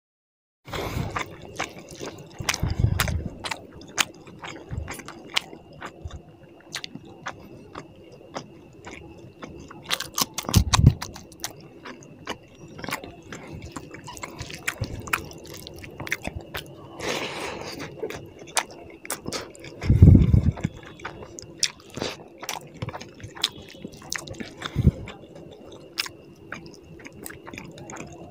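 Close-miked eating of tilapia fish curry with rice by hand: wet chewing and mouth clicks, with the squelch of curry-soaked fingers in the food. A few heavier low thuds stand out, the loudest about twenty seconds in.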